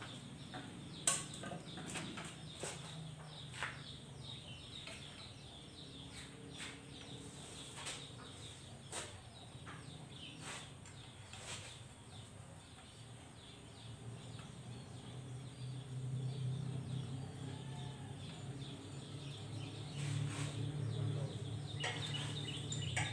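Sparse sharp clicks and knocks of hand tools and parts being fitted on a small home-built kart's frame and engine, mostly in the first half. A low hum grows louder in the last several seconds.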